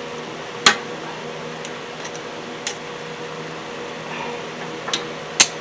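Sharp metallic clicks of a hand tool on a rear brake caliper as its piston is pushed back in: one loud click less than a second in, another near the end, with fainter ticks between. A steady mechanical hum runs underneath.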